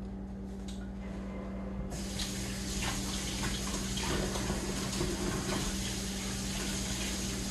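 Kitchen faucet turned on about two seconds in, water running steadily into the sink.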